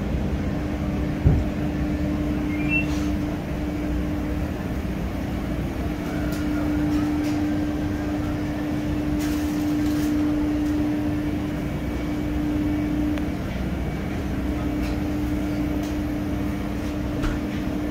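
Steady hum of restaurant kitchen machinery, with a steady tone that drops out briefly a couple of times. One sharp thump about a second in.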